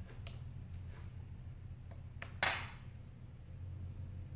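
Small clicks and taps from fingers handling the opened iPhone 6's display flex cables and connectors, with one louder, sharp click about two and a half seconds in. A low steady hum runs underneath.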